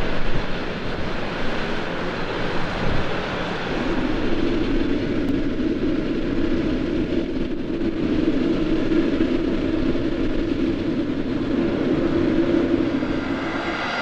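Boeing 787-8 Dreamliner's jet engines running at taxi power: a steady low hum over a broad rush of noise. The hum comes in about four seconds in and stops shortly before the end.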